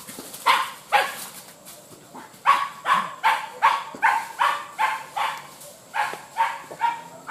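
Hunting dog barking on the chase of a wild boar, in quick runs of about two or three barks a second with a short pause about one and a half seconds in.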